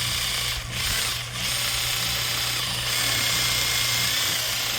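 Electric drill running with a tire-plug reaming bit, reaming out a screw puncture in the tire. The steady whir dips briefly twice in the first second and a half.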